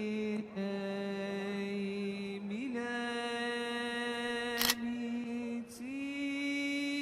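A voice chanting in Arabic in a few long, steadily held notes, moving to a new pitch every few seconds. A sharp click sounds about four and a half seconds in, with a fainter one a second later.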